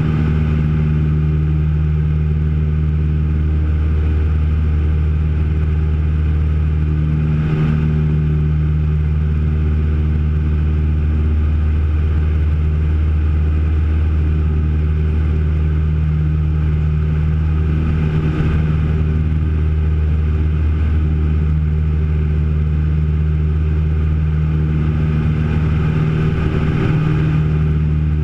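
Twin Comanche's two four-cylinder Lycoming piston engines and propellers running steadily in flight, heard inside the cockpit as a loud, even drone. The drone swells slowly about every ten seconds.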